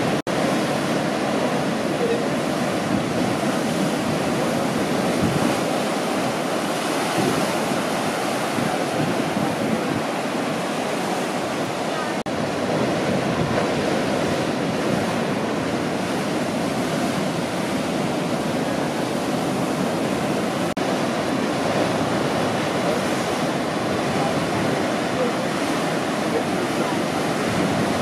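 Large ocean waves breaking and whitewater washing, a steady rushing surf noise throughout.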